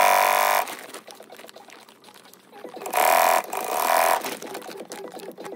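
Industrial sewing machine stitching through waterproof sailcloth in two short bursts: about a second at the start, then again from about three seconds in for just over a second.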